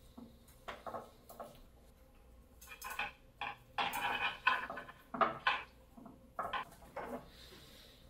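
Metal clicks, clinks and scrapes of thick bonsai wire and a metal wire cutter being worked at the base of the trunk as the anchoring wire is twisted tight. The sounds come in irregular bunches, busiest in the middle.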